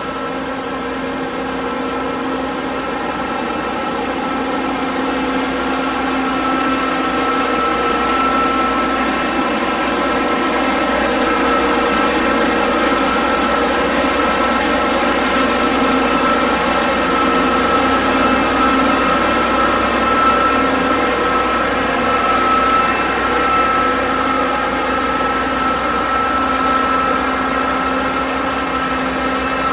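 John Deere X9 1100 combine harvester running steadily: a constant engine and machinery drone with a held whine above it, growing a little louder over the first ten seconds.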